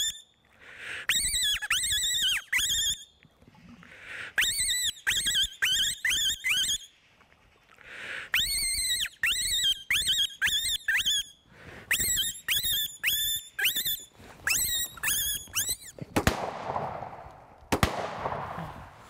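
A fox distress call giving runs of short, high, rising-and-falling squeals, four to seven in quick succession, again and again. Near the end a shotgun is fired: a sharp crack about sixteen seconds in and another about a second and a half later.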